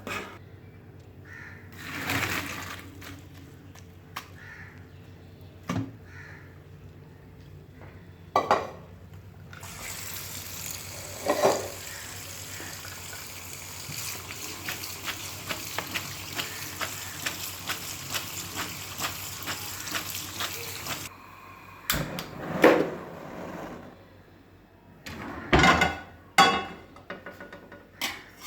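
Kitchen utensil and dish sounds: scattered knocks and clinks. About ten seconds in comes a steady crackling hiss that lasts around eleven seconds and cuts off abruptly, followed by sharper clinks of dishes and cutlery.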